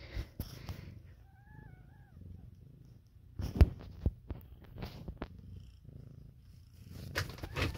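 Domestic cat purring steadily right at the microphone, with a brief faint wavering high tone about a second and a half in. Loud crackles and knocks of fur or handling against the microphone break in around three and a half seconds and again near the end.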